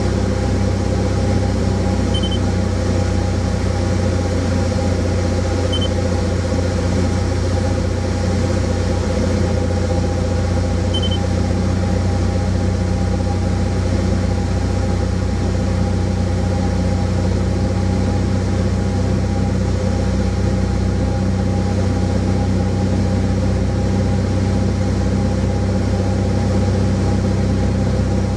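Light aircraft's engine and propeller running steadily, heard from inside the cockpit on final approach. Three short high beeps sound in the first dozen seconds.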